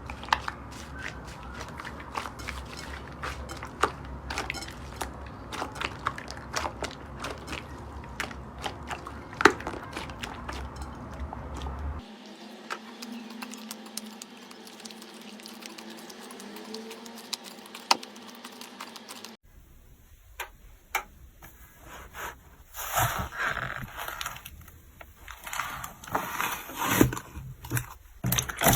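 Hands squeezing, poking and stretching slime, giving a run of small crackling clicks and pops. The sound changes abruptly twice, about 12 and 19 seconds in, and the last part is louder, with uneven bursts.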